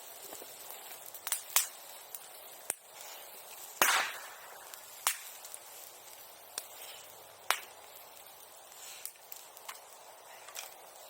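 A bonfire burning, with a string of sharp, irregular pops and cracks over a faint steady hiss; the loudest crack comes nearly four seconds in.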